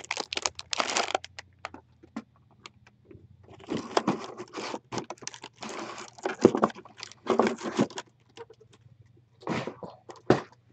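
Boxed plastic model kits being handled and shuffled: irregular rustling, scraping and light knocks of cardboard and wrapping, over a faint low hum.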